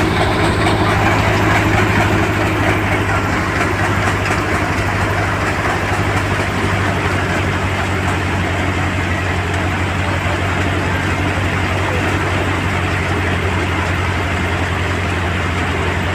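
Soybean harvesting machine running steadily: a deep engine hum with an even, loud rushing noise of machinery over it.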